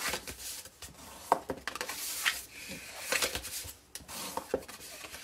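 A scored sheet of paper being folded along its score lines and burnished with a bone folder: a series of short paper crackles and scraping strokes.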